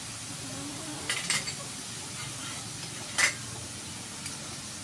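Beef frying in a wok with a steady sizzle. A metal spoon clinks twice about a second in and once more near three seconds in, as seasoning is spooned in from a small bowl.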